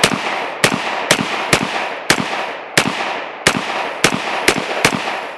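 Sig Sauer M400 AR-15 rifle firing 5.56 green-tip rounds in quick semi-automatic succession: about ten shots at an uneven pace over four to five seconds. Each shot trails a short echo.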